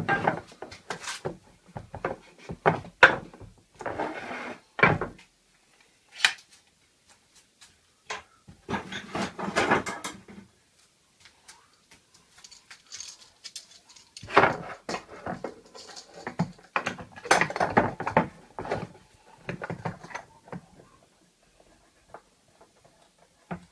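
Wooden fretsaw board being handled and clamped to a workbench: irregular knocks of wood on the bench and clicks and rattles of the clamp, in three bursts with short pauses.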